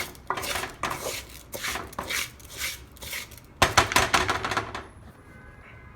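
Spoon stirring raw rice coated in oil and seasoning in a pot: rhythmic scraping strokes, two or three a second, with a louder burst of gritty clatter about halfway through before it quiets.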